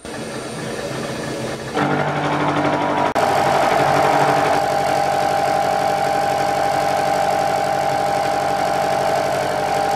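Vertical milling machine running with its milling cutter taking a cut along the side of a metal block, machining it to width: a loud, steady machining sound. It gets louder about two seconds in, with a brief break about a second later.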